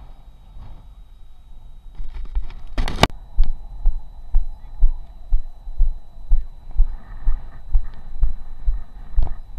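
Muffled footfall thuds, about two a second, carried through a body-worn action camera as the wearer walks across sand. A loud, short rush of noise comes just before three seconds in.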